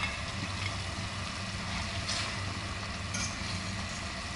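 Tomato sauce sizzling gently in a stainless steel pan over a gas burner, over a steady low hum, with a few faint light knocks as langoustines are lifted out of the pan by hand.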